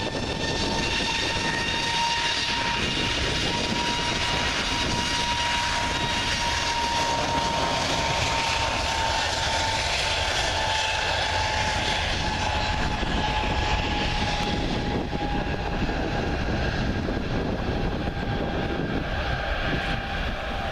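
Airbus A320neo's CFM LEAP-1A turbofans at takeoff thrust during the takeoff roll: a loud steady jet rush with a clear fan whine. The whine's pitch slowly falls through the second half as the jet moves away.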